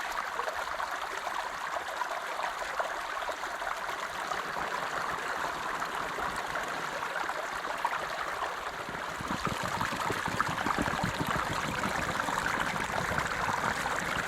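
Creek water running steadily over rocks, growing a little fuller and louder about nine seconds in.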